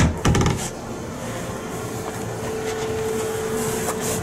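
Two loud knocks about a third of a second apart right at the start, from the boat cabin's wooden door and fittings being bumped and handled, over a steady hum with a constant tone.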